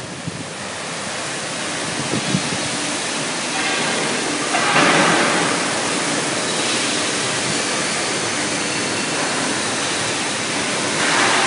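Steady loud hiss of factory machinery in the cutting and welding area, swelling briefly about five seconds in and again near the end.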